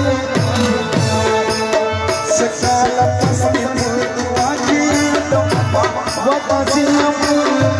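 Live folk music: a hand drum keeps a fast rhythm with deep bass strokes that slide down in pitch, under a wavering melody line.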